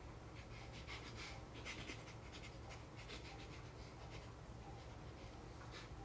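Faint scratchy rustling, a run of short scrapes and rubs that is busiest in the first half: a large dog's fur and a person's clothing rubbing together as the dog leans over him.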